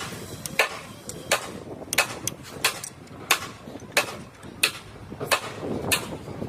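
Hammer blows at a steady pace, about three every two seconds, each a sharp strike with a short ring.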